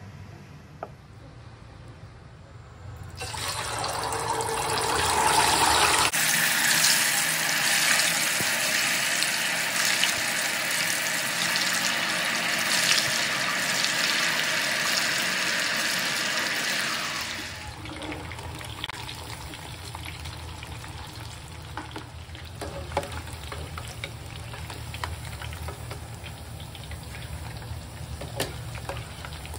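Tofu strips deep-frying in a saucepan of oil: a loud, steady sizzle of vigorously bubbling oil that starts about three seconds in and drops to a quieter sizzle after about seventeen seconds, with a few light clicks near the end.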